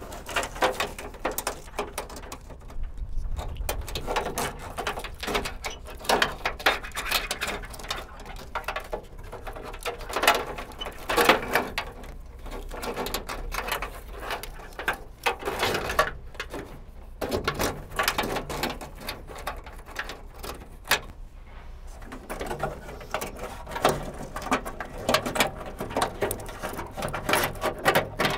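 Wiring harness and its plastic clips rustling, clicking and knocking against the sheet-metal inner panel of a Honda Civic trunk lid as it is fed through the holes. The noises come in a dense, irregular run of small clicks and taps.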